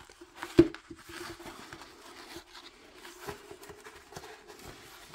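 A large rolled diamond painting canvas and its protective paper sheet being unrolled by hand, crackling and rustling with many small clicks, and one sharp snap about half a second in.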